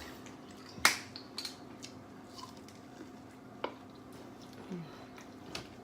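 A few sharp clicks and knocks of dishes and utensils being handled at a table, the loudest about a second in, over a faint steady hum.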